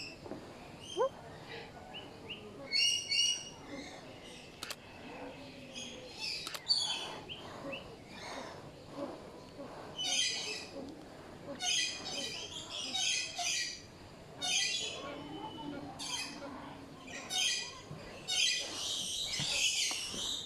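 Birds calling over and over in short, high chirps and squawks, thickening into a dense burst of calling near the end.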